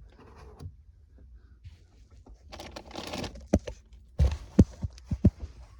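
Handling noise while fitting amp rack panels: a brief rustle, then a run of sharp knocks and clunks as the parts are set in place.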